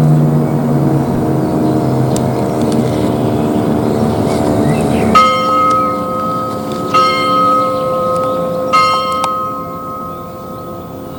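Church bell struck three times, about a second and three-quarters apart, each strike ringing on and slowly fading. Before the first strike, a steady hum of several low held tones.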